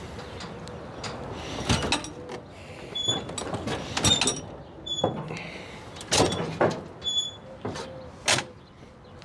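Metal knocks and scraping from a loaded appliance hand truck on a trailer deck as a heavy vending machine is levered and tipped back onto it, with about five sharp knocks and several short high squeaks.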